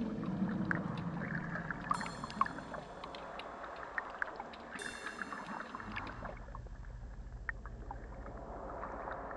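Underwater soundscape recorded with hydrophones: a water hiss with scattered clicks and crackles, and two high ringing tones that start suddenly about two and five seconds in and fade away. A steady low hum comes in about six seconds in.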